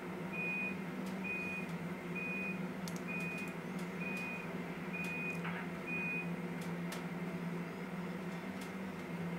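A run of seven short electronic beeps at one high pitch, evenly spaced about three-quarters of a second apart, stopping about two-thirds of the way through, over a steady low hum and a few faint clicks.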